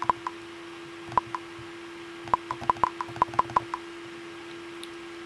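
Computer mouse buttons clicking: a few single clicks, then a quick run of about ten clicks, over a steady faint hum.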